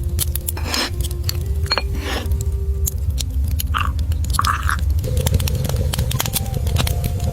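Crunchy chewing close to the microphone, many short crisp bites and crunches, over soft background music with a deep steady bass.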